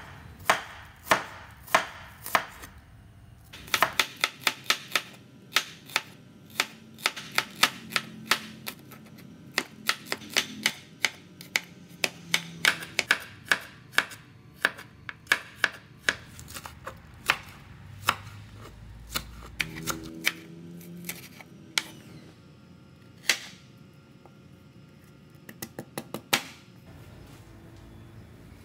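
A kitchen knife slicing garlic cloves on a wooden cutting board: a run of sharp knocks as the blade strikes the board, dense and quick through the middle, then thinning out to a few single knocks near the end.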